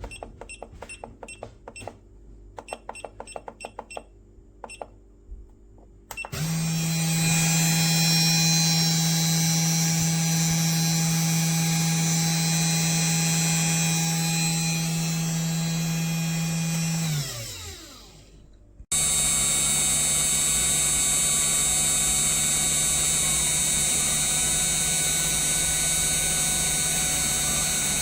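Genmitsu 3018-PROVer V2 desktop CNC mill: a run of short clicks, then the spindle motor starts suddenly and runs with a steady whine. About 17 s in it spins down, falling in pitch. After an abrupt cut it is running steadily again, with more hiss.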